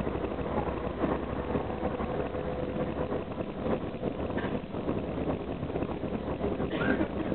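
Karosa B741 articulated city bus running along the road, heard from the front of its cabin: the diesel engine hums steadily under the road noise, with frequent short rattles and knocks from the body.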